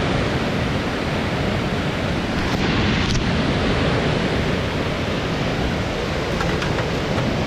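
Steady rushing water noise, a fast river current blended with heavy rain, forming an even hiss.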